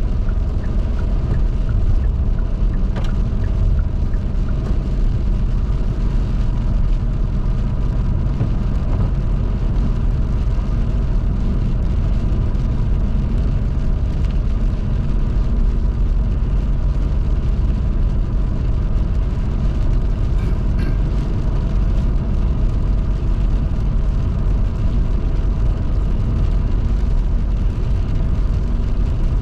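Car driving on a rain-wet highway: steady road and tyre noise with a low rumble.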